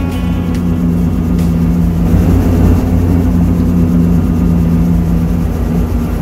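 Helicopter engine and rotor running on the ground: a steady low drone with two held tones, one of which fades out about five seconds in.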